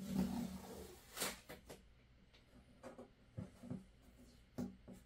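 Packing tape being peeled off the front of a 3D printer, a rasping rip in the first second or so, followed by a sharp tearing snap and several light knocks and clicks of handling.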